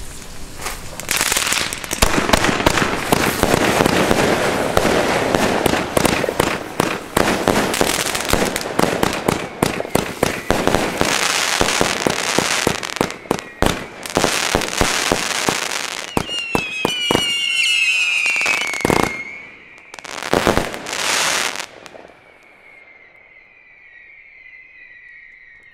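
Pyroland Proud and Loud fireworks battery firing: a dense, rapid run of launches and bursts for about eighteen seconds. Then comes a high wavering tone, two last bursts, and the sound dies down.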